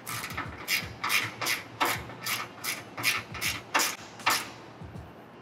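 Ratchet wrench with a 3/8 socket worked back and forth in quick strokes, tightening a bolt. Each back-swing gives a short rasp of pawl clicks, about two to three a second, and the strokes stop about four seconds in.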